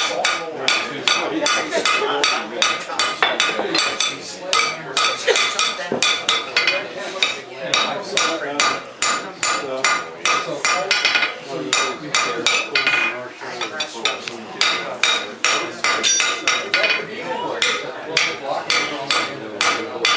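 Blacksmith's hammer striking metal on an anvil in a steady run of blows, about two to three a second with a few short breaks, each blow ringing metallically.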